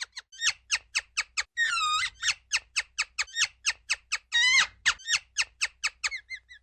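Ground squirrel calling in a rapid series of sharp, falling chirps, about five a second, typical of its repeated alarm call. Two longer, drawn-out calls break the series, and the chirps turn softer and shorter near the end.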